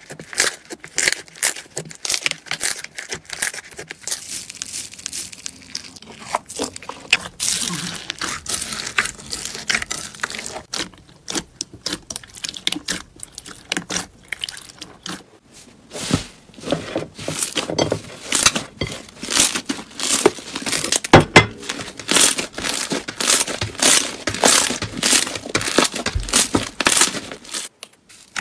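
Hands squeezing, kneading and poking slime, making rapid, irregular crackling and popping clicks as air pockets in the slime burst.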